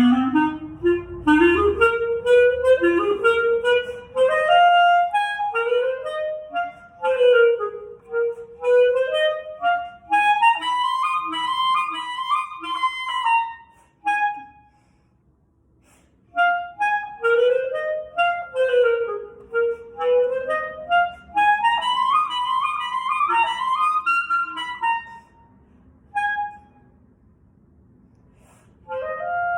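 Solo clarinet playing a blues tune in short-note phrases, pausing briefly about halfway through and again near the end.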